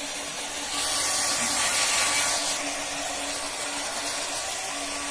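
Hand-held electric hair dryer blowing steadily onto a wet puppy's coat: a rush of air over a steady motor hum, growing louder and hissier for about two seconds starting about a second in.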